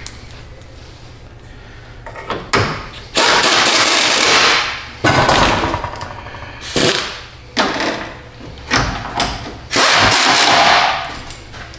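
Air-powered tool (pneumatic ratchet or impact gun) running in a string of bursts as it drives front-end bolts, each burst winding down as the trigger is released.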